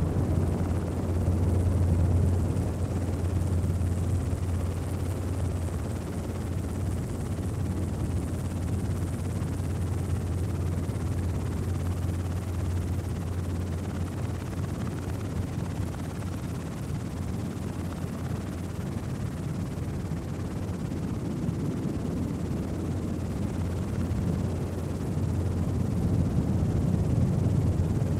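Steady drone of a light aircraft's engine heard from on board, a low hum under a constant rushing noise, swelling slightly near the end.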